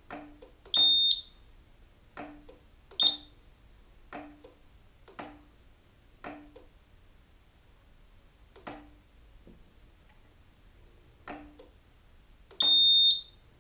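Roma Sorrento mobility scooter's electromagnetic brake clicking on and off as the throttle lever is pushed forward and back, about a dozen clicks each followed by a short low hum of the drive. The scooter's electronic beeper sounds three times: briefly twice early on and once longer near the end. With the throttle pot re-centred, the drive is engaging in both forward and reverse without cutting out to a fault.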